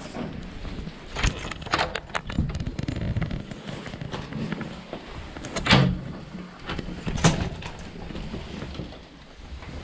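A series of irregular knocks and clatters, the loudest two about six and seven seconds in, over a steady low rumble.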